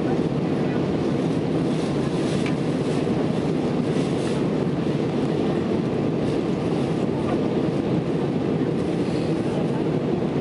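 Steady cabin noise of a jet airliner in flight: its engines and the air rushing past, an even low rush heard inside the cabin during the descent to land.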